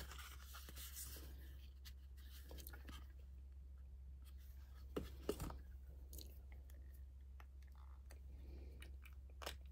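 Faint handling of a cosmetic palette and its packaging: scattered small clicks and taps, two a little louder about five seconds in, over a steady low hum.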